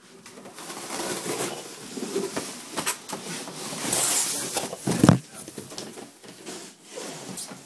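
Cardboard and packing material rustling and scraping as a heavy PC case is pulled out of its box, with a louder swish about four seconds in and a single knock about five seconds in.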